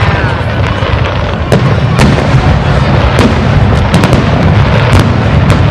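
Fireworks display: aerial shells bursting overhead, irregular sharp bangs over a continuous low rumble of booms, with several bangs close together about four seconds in.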